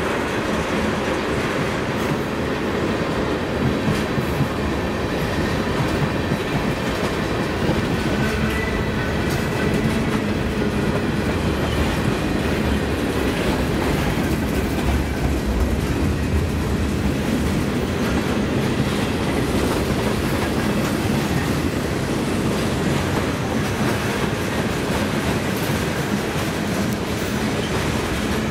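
A long freight train's tank cars and covered hopper cars rolling past at low speed: a steady rumble with the repeated clack of wheels over rail joints.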